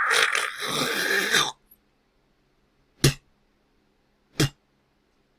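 A person hawking, harshly clearing phlegm up from the throat for about a second and a half, followed by two short sharp spitting sounds.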